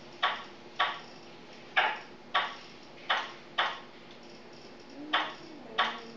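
Sharp hand claps in pairs, each pair about half a second apart with roughly a second between pairs, over a faint steady hum.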